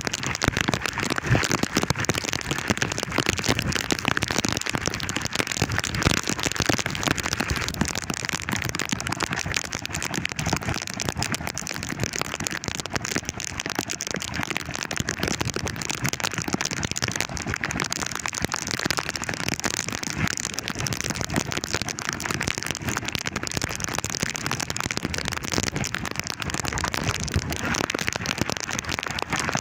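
Heavy rain pelting down, a dense steady patter of countless small hits.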